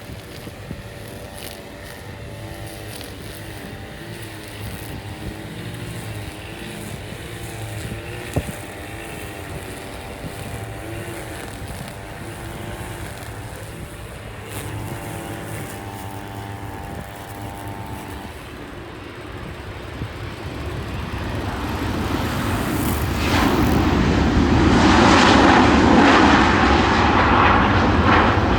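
Airplane engines: several steady, wavering tones for most of the first 18 seconds, then a roar that grows louder from about 20 seconds in and is loudest near the end as the aircraft comes close.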